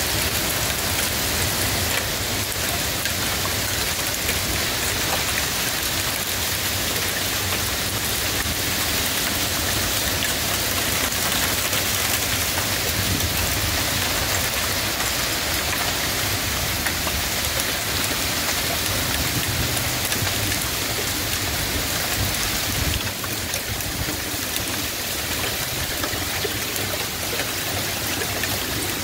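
Heavy downpour of wind-driven rain in a severe thunderstorm, a steady loud rush with strong wind rumbling on the microphone, easing slightly near the end.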